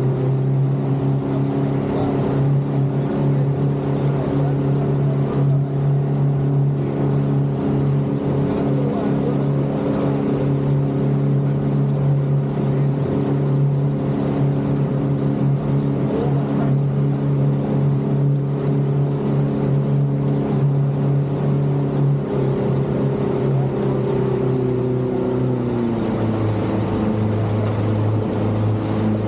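Motorboat engine running steadily at speed, with water rushing and churning past the hull. Near the end the engine note drops as the throttle eases.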